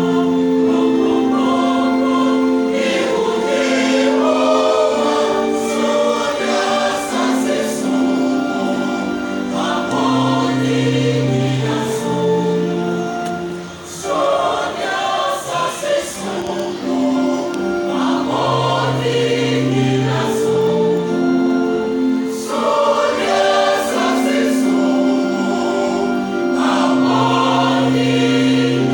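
Church choir singing in harmony, long held chords in several voice parts, with a short break between phrases about halfway through.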